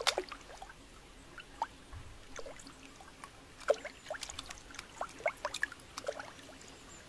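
Raindrops falling into a shallow pool of water: scattered, irregular plinks and drips.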